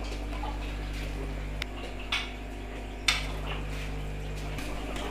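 A few sharp clinks and clatters of kitchenware, the loudest about three seconds in, over a steady low hum.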